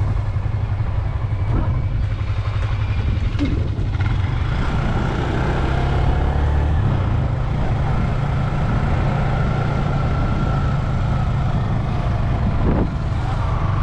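Motorcycle engine running steadily while riding along a road, with heavy wind rumble on the microphone.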